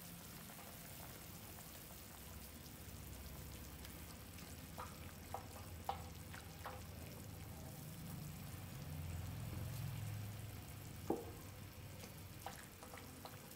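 Pot of soup simmering on a portable gas stove, a faint steady bubbling, while a ladle stirs through it, with a few light knocks against the pot around the middle and once more near the end.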